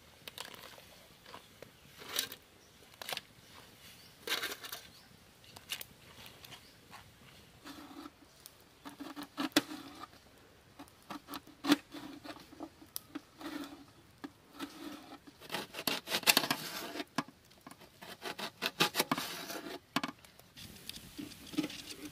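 A knife cutting onions on a metal plate: a string of separate sharp taps and clicks, with quick runs of cuts about 16 and 19 seconds in.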